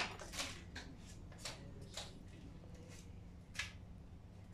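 About five light taps and rustles of hands placing small pieces on a mounting board, the first the loudest, over a low steady hum.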